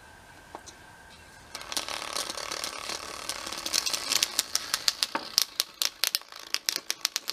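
Small full-range speaker driver, overdriven by an amplifier, crackling and popping with distortion. It starts about a second and a half in and grows into sharp, loud cracks near the end. This is the speaker being blown.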